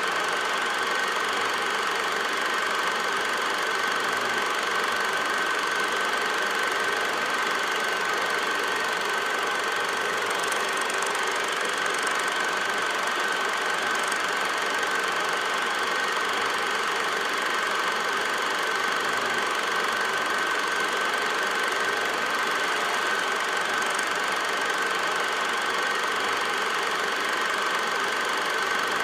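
8mm film projector running: a steady mechanical whirr with a constant tone throughout, no change in pace or level.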